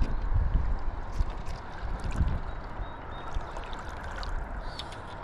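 Shallow river water gurgling and sloshing around the legs of someone wading, with uneven low rumbles of wind on the microphone.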